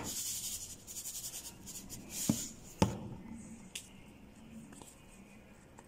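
Salt sprinkled over seasoned rice in a plastic tub: a soft, fine rustle, followed by a few light clicks and knocks.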